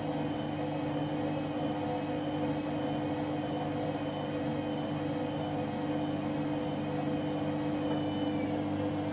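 Washing machine running at a steady speed, its motor giving an even hum with a high whine that wavers slightly in pitch.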